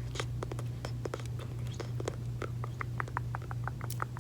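Close-miked wet mouth sounds: sticky clicks and smacks of gum chewing, sparse at first, then a quicker run of about four or five clicks a second in the second half. A steady low hum runs underneath.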